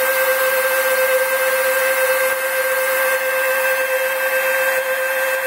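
Omniturn CNC lathe knurling the outside diameter of a spinning metal part: a steady machine whine under the even hiss of two air-driven mist oilers.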